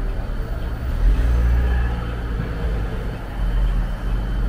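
City bus in motion heard from inside the cabin: a steady low rumble of drive and road noise that swells about a second in.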